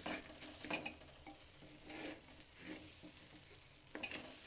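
A spoon stirring and scraping frying rice in an aluminium pressure cooker, with faint sizzling under it. There are a few irregular scrapes and clinks, the sharpest just under a second in and again about four seconds in.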